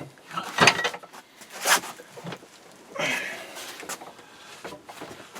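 Sharp metallic clanks and knocks of hand tools working a stuck threaded rod loose, with a short grating stretch about three seconds in.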